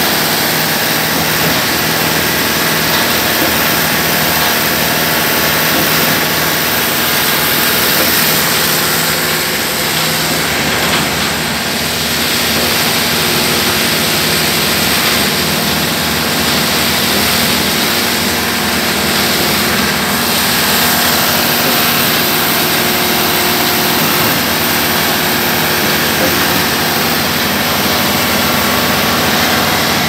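Engine of an Aquarius stationary concrete pump running steadily under load while the pump works.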